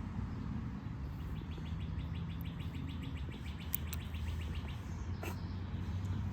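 A rapid, even chirping trill, about eight notes a second, lasting about three seconds over a steady low rumble, with a single click near the end.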